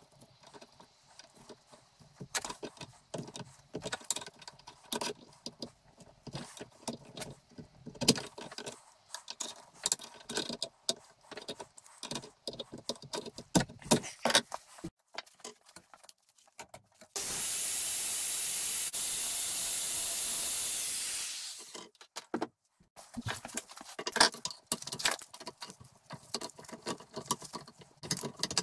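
An adjustable spanner and pliers clinking and scraping on a cast-iron vice part while a nut is worked loose, in irregular metallic clicks. About seventeen seconds in, a loud, steady hiss runs for about four seconds and stops.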